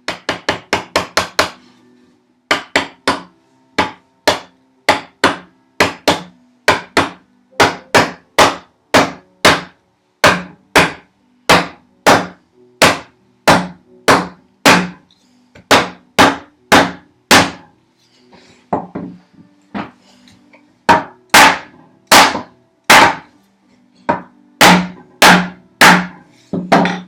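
Repeated blows on wood, knocking the hand-cut dovetail joints of a wooden box carcass together during assembly: a quick run of light taps, then steady strikes about one and a half a second, a short lull of softer taps, and heavier blows near the end.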